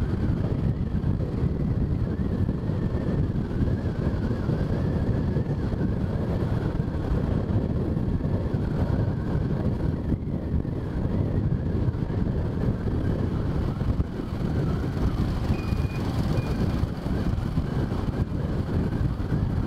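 Motorbike ride through city traffic: steady engine and road noise with wind buffeting the microphone.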